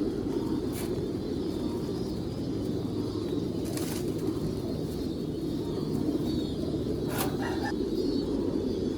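Many pigeons cooing together in a loft, a continuous low cooing, with three short sharp clicks spread through it.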